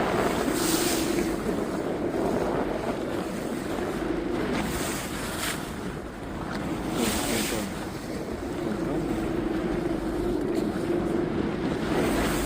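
A boat's engine running steadily, with water rushing and splashing against the hull in surges every couple of seconds and wind buffeting the microphone.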